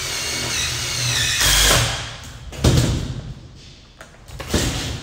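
Cordless power driver whining as it drives a screw into the corner of a galvanized sheet-metal duct mate frame, lasting about a second and a half, followed by two sharp knocks.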